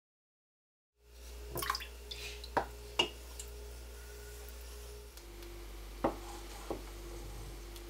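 After a second of silence, a wooden spoon stirs agar water in a stainless steel saucepan, knocking sharply against the pot a few times, over a steady low hum.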